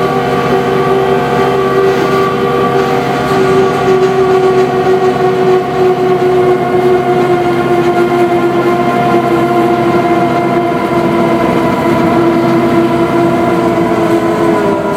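Miniature diesel locomotive's 80-horsepower engine and hydraulic drive running steadily under power, a constant whine whose pitch sags slightly over the stretch.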